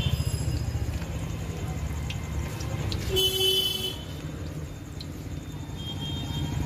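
A vehicle horn toots once, for under a second, about three seconds in, over a steady low engine rumble from street traffic. Oil sizzles around chicken pakoras deep-frying in an iron kadai.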